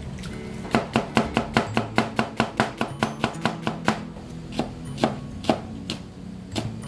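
Kitchen knife slicing an onion on a cutting board: a fast, even run of chops, about five a second, then a few slower, spaced chops near the end as chili peppers are sliced.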